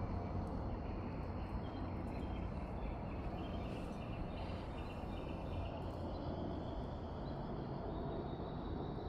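Outdoor ambience: a steady low rumble with faint bird chirps over it through the first half.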